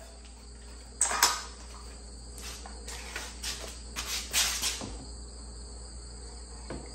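Circular saw being handled while its cutting depth is set: a sharp clack about a second in, then a run of short clicks and scrapes, over a faint steady high-pitched background tone.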